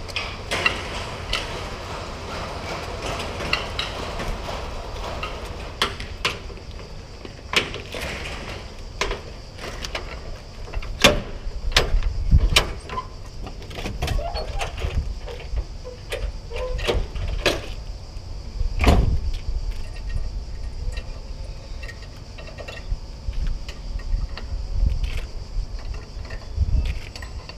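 Irregular metallic clicks, knocks and rattles of a curtain-side trailer's curtain buckles and straps being hooked onto the bottom rail and tightened.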